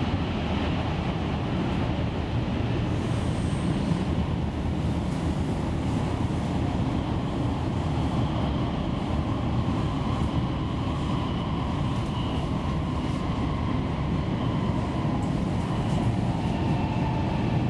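Helsinki Metro M200 train running between stations, heard from inside the carriage: a steady rumble of wheels on rail and running gear, with a faint steady whine over it.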